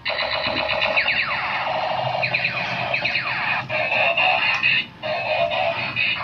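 Tinny electronic toy music from a small battery-toy speaker, with quick falling electronic swoops and a couple of short breaks in the tune, over a faint low motor hum.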